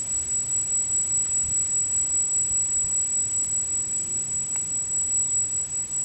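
Steady high-pitched electronic whine from a powered brushless camera gimbal and its controller, unchanged as the joystick moves, over a low rumble that swells and fades a few times a second.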